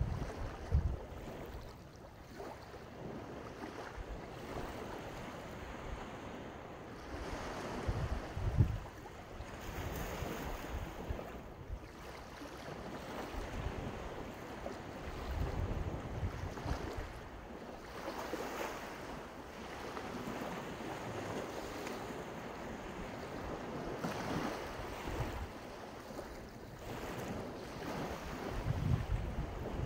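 Sea waves breaking and washing on the shore, the surf swelling and fading every few seconds, with several gusts of wind rumbling on the microphone.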